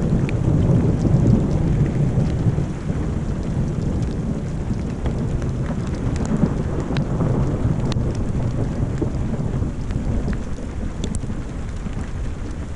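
Thunder rumbling, loudest in the first two or three seconds and then settling into a steady low rumble, over falling rain. Scattered single drops tick close by.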